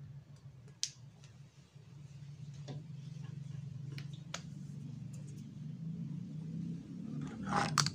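A plastic fuel pump assembly being handled and fitted, giving a few light clicks and a brief louder clatter near the end. A steady low hum runs underneath and grows a little louder after about two seconds.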